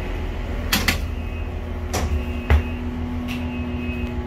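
Passenger train carriage in motion: a steady low rumble with a few sharp knocks and clicks, and a steady hum setting in about halfway through.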